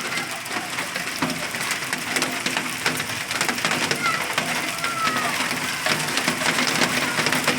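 Hailstones pelting down in a hailstorm, a dense, continuous clatter of many small hits.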